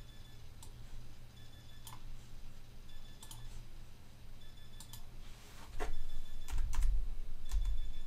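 Scattered computer mouse clicks and keystrokes, roughly eight sharp clicks spread irregularly, with a few low thumps in the last two seconds.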